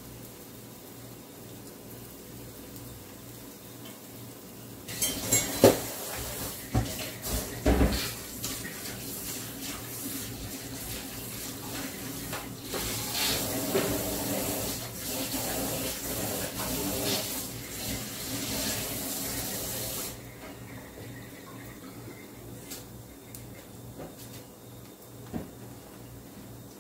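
Kitchen tap running, with dishes and utensils clinking and knocking, starting about five seconds in and shut off abruptly some fifteen seconds later; a few faint knocks follow.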